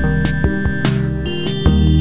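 Instrumental background music with a steady beat and sustained notes over a bass line.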